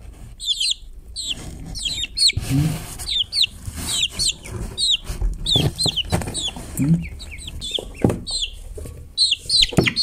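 Young chicks peeping: many short, high, falling peeps, often overlapping, with a few soft knocks and rustles of handling.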